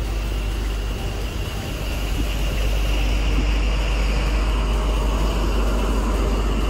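East Midlands Trains HST (Class 43 power car) diesel engine running at a station platform: a steady drone with a high whine, growing louder about two seconds in.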